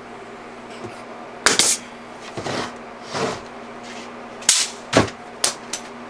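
Pneumatic nail gun firing nails into wooden boards, toenailing the joints of a frame: sharp shots, two close together about a second and a half in, then four more in quick succession near the end.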